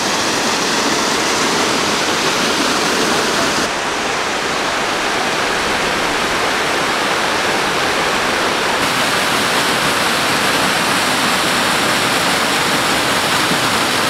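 Waterfall pouring onto rocks into a pool, heard up close as a steady, dense rush of splashing water. Its tone shifts slightly about four and about nine seconds in.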